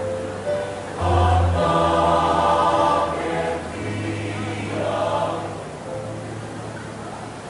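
Choir singing held chords in parts, swelling louder about a second in and again a little past the middle.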